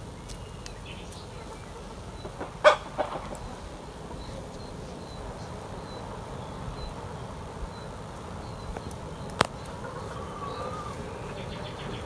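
Chickens clucking in a rural yard, with two sharp knocks about seven seconds apart, the first the louder.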